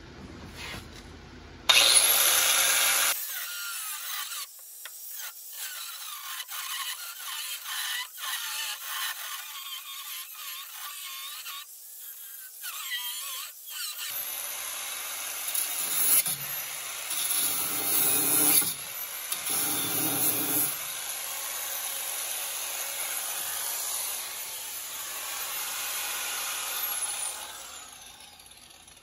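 High-speed power tool cutting through a steel door hinge, a steady noisy cut with a high motor whine. The whine falls away near the end as the tool spins down.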